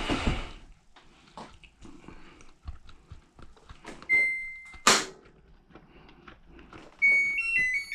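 Samsung front-load washer's control panel: a single long beep about four seconds in, a sharp click right after it, and near the end a short electronic tune of stepping beeps, amid small handling clicks.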